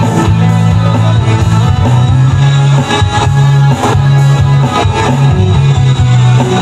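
Live band playing an instrumental passage: electric bass holding long low notes under electric guitar, with a steady beat.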